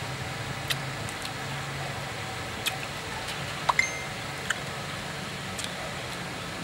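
People chewing cooked chicken feet: scattered sharp smacks and crunches over a steady low hum.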